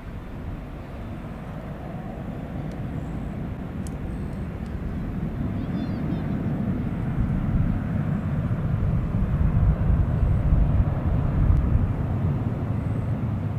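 Boeing 767-300ER's twin turbofan engines at takeoff thrust as the airliner climbs away: a deep rumble that builds steadily and is loudest about three-quarters of the way through.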